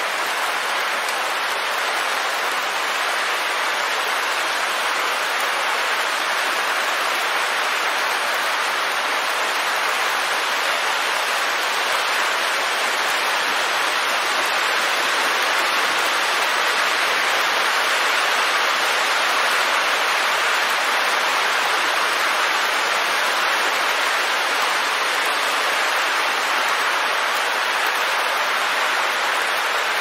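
Steady rain falling, an even hiss with no single drops standing out and no thunder.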